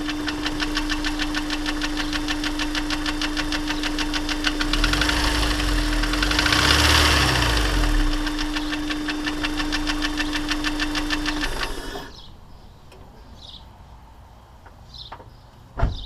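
Honda S2000 engine running warm with a rapid, even ticking knock. The uploader first took it for rod knock, but it came from the piston in cylinder 1, scraped up in a cylinder warped by a failed oil squirter. The engine shuts off abruptly about twelve seconds in, leaving a few faint chirps and a short thump near the end.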